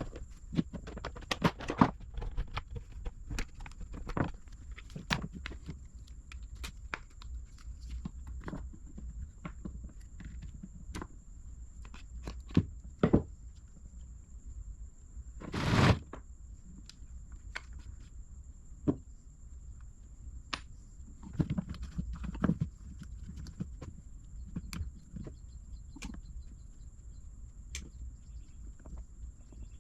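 Scattered clicks, taps and knocks of small parts and hand tools being handled on a workbench, with one louder, longer clatter about 16 seconds in. A faint steady high-pitched whine sits underneath.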